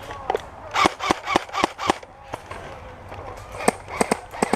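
Airsoft guns firing: a string of about five shots in the first two seconds, a few scattered shots later, then a fast burst near the end.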